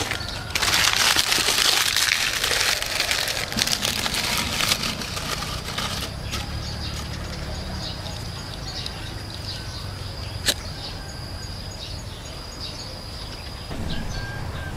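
Rustling and crackling of dry leaves being handled for the first few seconds. After that, birds chirp in the background, with one sharp click about ten seconds in.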